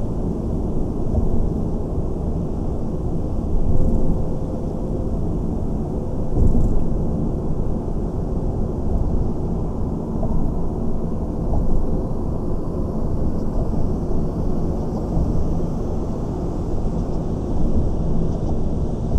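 Car driving on city streets: a steady low rumble of road and engine noise that swells and eases slightly.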